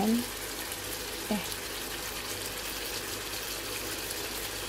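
Apple slices cooking in butter and sugar in a frying pan, giving a steady sizzling bubble throughout. A short low sound comes at the very start, and another just over a second in.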